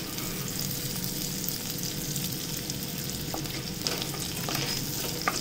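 Chopped garlic and a lump of butter sizzling steadily in hot oil in a nonstick pan, the butter melting as the base of a white sauce, with a few light taps of a spatula stirring.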